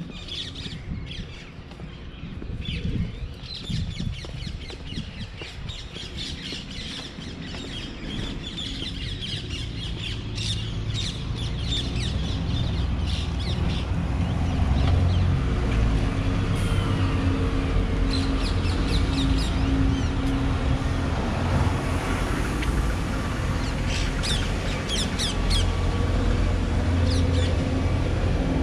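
Birds chirping and squawking, over a low, steady engine-like rumble that builds through the first half and then holds.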